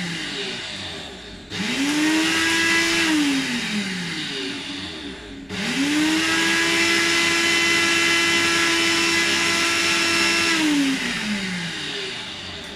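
Electric blender running in bursts while blending a smoothie. It winds down at the start, speeds up quickly about a second and a half in and coasts down with falling pitch. It starts again near the middle, runs steadily for about five seconds and winds down near the end.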